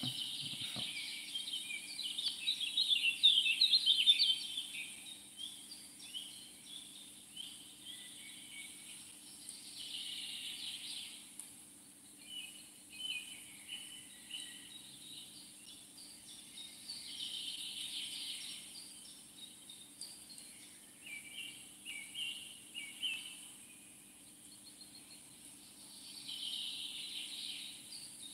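Wild birds singing and chirping in spells of quick notes every few seconds, loudest in the first few seconds, over a faint steady high hiss.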